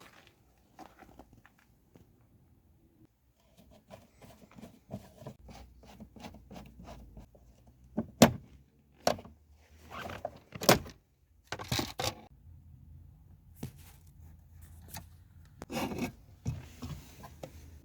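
Irregular clicks, knocks and scraping from parts and tools being handled, with a few sharp knocks around the middle and another group near the end.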